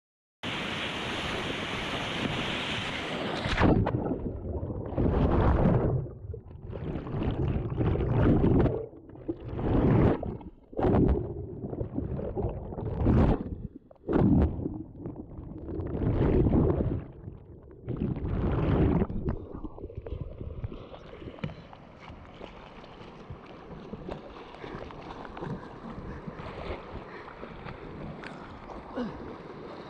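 Fast whitewater river water rushing and splashing close around a swimmer's camera, in irregular loud surges for about fifteen seconds, then settling into a steadier, quieter rush.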